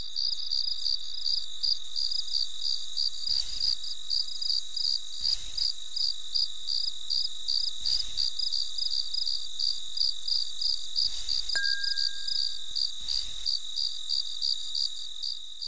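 Crickets chirping in an even, fast rhythm of about three or four chirps a second, with a few soft low thumps and one brief high ping near the end.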